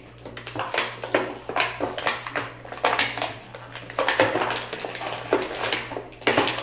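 Clear plastic blister packaging crackling and clicking in quick, irregular snaps as small toy figures are pried out of their moulded tray.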